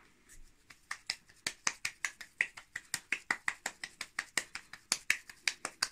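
A lump of mixed minced meat being slapped rapidly from palm to palm to shape it for lula kebab. It makes a fast, even run of sharp smacks, about five or six a second, starting about half a second in.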